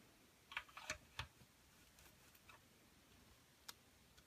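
Light plastic clicks and taps as toy swords are handled and pushed into the slots of a plastic pop-up pirate barrel: a quick cluster about a second in, and a single click near the end.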